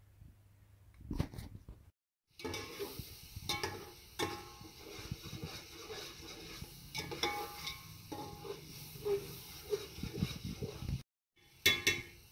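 Oil and masala sizzling and bubbling in a cooking pot, a steady crackling hiss. Near the end a metal spoon clinks against the pot several times.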